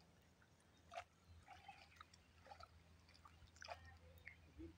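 Near silence, with faint water sounds from a man wading in a shallow river and one faint click about a second in.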